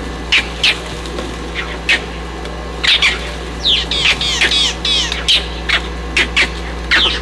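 Short, high animal calls, each falling sharply in pitch, repeated irregularly and in quick runs of several around the middle, over a steady low hum.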